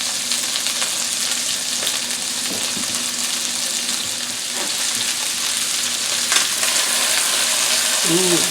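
Chicken pieces sizzling steadily as they brown in butter in a frying pan, with a single click about six seconds in.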